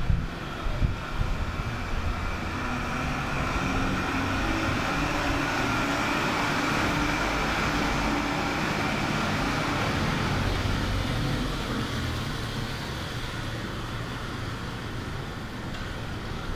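A motor vehicle passing through a rainy street scene, its engine rumble and tyre noise building over a few seconds, holding, then fading, over a steady hiss of rain.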